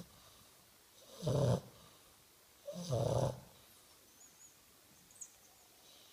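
English bulldog snoring: two loud snores about a second and a half apart, the second a little longer than the first.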